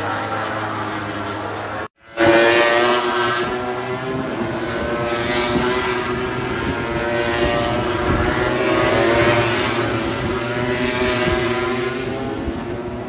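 MotoGP racing motorcycles running at high revs past the track edge, the engine note rising and falling in pitch as the bikes go by. The sound cuts out for a moment about two seconds in, then picks up again.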